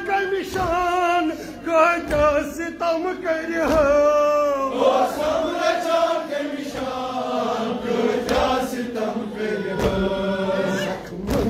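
Man chanting a Kashmiri noha, a Shia lament, in long rising and falling phrases, with other voices joining in.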